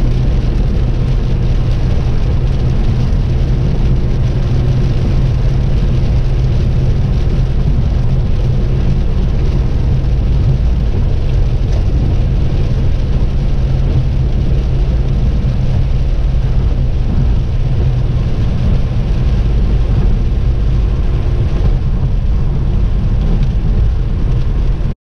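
Steady drone of a car cabin at highway speed on a wet road: engine hum and tyre noise, strongest low down, with no change through the stretch.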